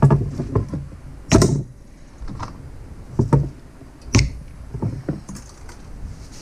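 Spark plug wire boots being pulled off the towers of an ignition coil pack by hand: a series of sharp rubber-and-plastic clicks and knocks, the loudest right at the start, about a second and a half in, and about four seconds in.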